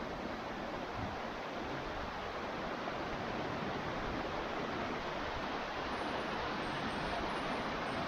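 Steady rushing of water pouring over a small waterfall on a stream.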